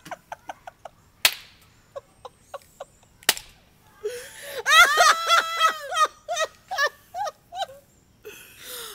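Two women laughing hard: first quick, breathy, rhythmic laughs, broken by two sharp smacks about two seconds apart, then from about halfway through a loud, high-pitched, drawn-out laugh.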